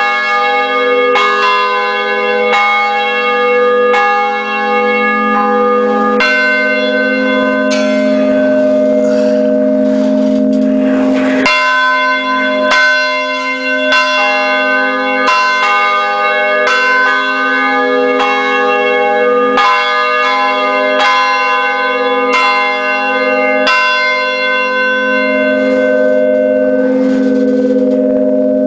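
Church tower bells rung by hand, heard up close: strike after strike about every second and a quarter, each stroke's tones ringing on and overlapping the next.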